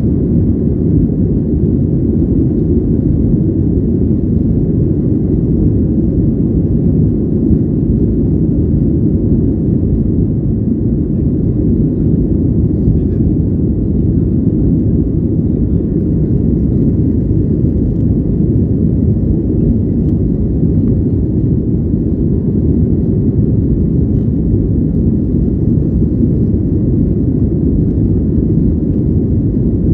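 Steady low rumble of an airliner's cabin during the climb after takeoff: engine and airflow noise heard from inside, by a window seat.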